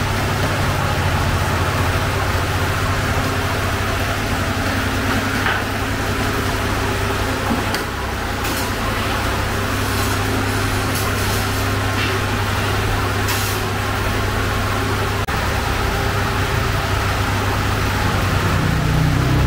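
Steady machine roar with a strong low hum from a sangak bakery's oven and equipment, with a few brief metallic clicks from the long bread peels in the middle.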